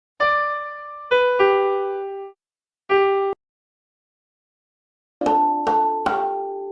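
Short electronic keyboard jingles: a few bright, piano-like notes with gaps of silence between them, then a quick run of rapidly struck notes starting about five seconds in. The notes stop abruptly rather than fading, like a synthesized sound effect.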